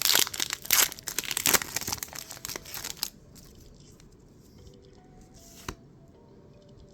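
Foil booster pack wrapper crinkling and tearing open in quick rustling crackles for about the first three seconds, then quieter handling with one light tap near the end.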